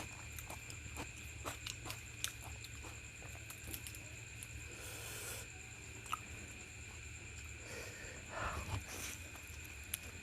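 Close-miked chewing and mouth sounds of someone eating luchi with egg masala: scattered soft clicks and wet smacks, with a faint steady high hum underneath.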